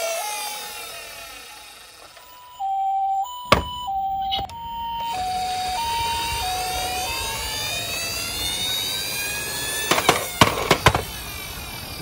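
Toy ambulance's built-in speaker playing a two-tone hi-lo ambulance siren, alternating between two pitches about every half second; it fades out about a second in, starts again a little later and stops about two-thirds of the way through. A few sharp clicks and knocks follow near the end.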